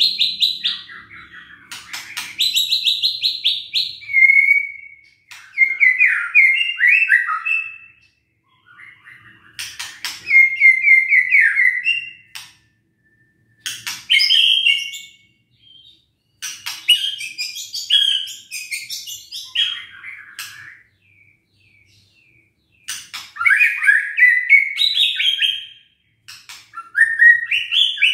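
White-rumped shama singing in an agitated, fired-up mood. It sings repeated phrases of a second or few, with short pauses between them. The first two phrases are rapid harsh rattles, and the rest are varied whistled notes sliding up and down.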